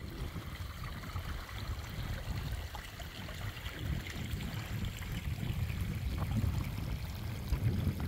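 Shallow water trickling over boggy grass and moss, with a low, uneven rumble underneath that grows a little louder towards the end.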